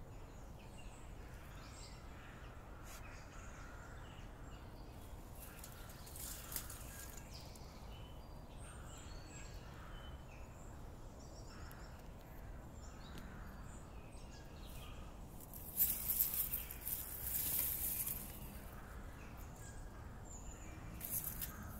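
Outdoor ambience with a steady low rumble and scattered bird calls. A loud hissing rustle about 16 seconds in lasts a couple of seconds, with shorter ones around 6 seconds and near the end.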